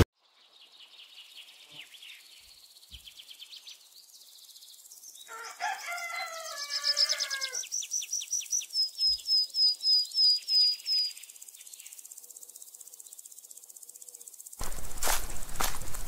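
Birds chirping and trilling, with a rooster crowing once about five seconds in, followed by a rapid run of high chirps and a descending series of whistled notes. Near the end, footsteps start.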